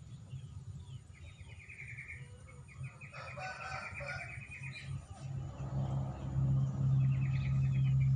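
Birds calling in rapid trills, repeated three times, with a louder fowl-like call about three seconds in. A low steady hum grows louder in the second half.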